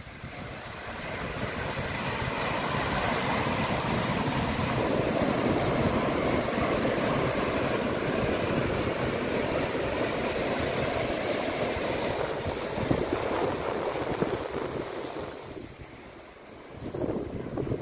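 Pacific Ocean surf washing onto the shore: the rush of a wave swells up over a couple of seconds, holds for a long stretch, eases off briefly near the end, then rises again as the next wave comes in.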